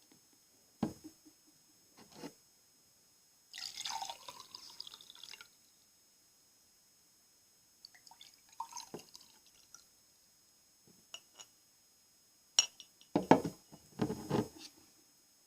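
Close-miked ASMR trigger sounds: scattered taps and clicks, a rustle lasting about two seconds, and a cluster of louder knocks near the end.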